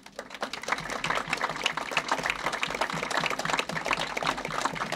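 Crowd applauding, the clapping swelling within the first second and then holding steady.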